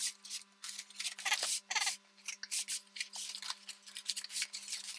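Knife blade scratching and slicing at the packing tape and cardboard of a parcel, in a run of short scrapes and cuts with a longer rasping stretch about one and a half seconds in.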